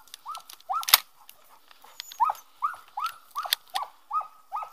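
A French Pyrenean braque hunting dog whining over and over, about ten short high whines that rise and fall, coming in quick runs. A single sharp click sounds about a second in.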